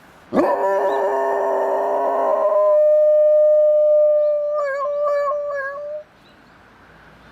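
Dog howling: a long howl that swoops up at the start, holds one steady note, wavers toward the end and stops about six seconds in.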